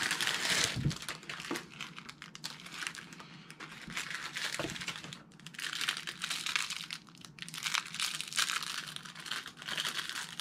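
Plastic wrapper crinkling in several spells with short quieter gaps, as an individually wrapped Swiss roll snack cake is handled and opened by hand.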